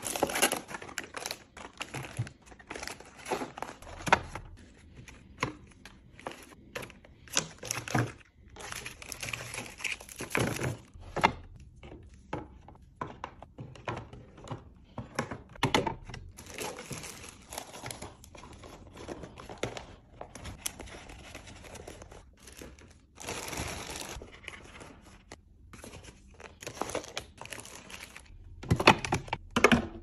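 Packaged food and plastic containers being handled and set into clear plastic fridge organizer bins and door shelves: irregular plastic clicks and knocks mixed with stretches of crinkling packaging.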